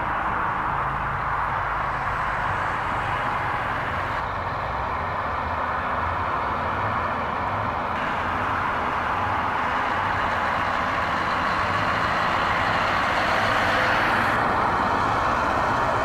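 Heavy truck's diesel engine running with an open, straight-through exhaust, a steady deep rumble that swells slightly about three-quarters of the way through.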